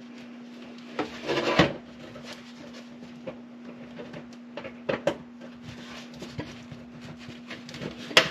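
Handling sounds of hooking up a new oven heating element: a loud scraping rattle about a second in, then scattered clicks and taps, with a sharp click near the end as a spade connector goes onto its terminal. A steady low hum runs underneath.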